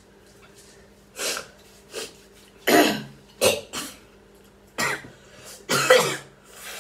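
A person coughing repeatedly, about seven hard coughs in a few clusters, the loudest about three and six seconds in: coughing brought on by the burn of an extremely hot chili-pepper chip.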